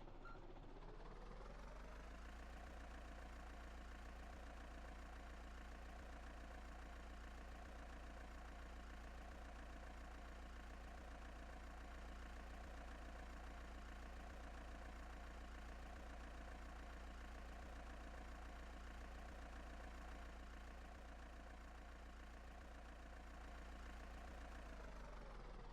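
A heavy machine's engine revving up over the first couple of seconds, running steadily at the higher speed, then dropping back down near the end.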